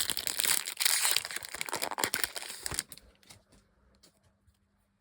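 A trading card pack's wrapper crinkling and tearing open for about the first three seconds, then a few light clicks as the cards are handled.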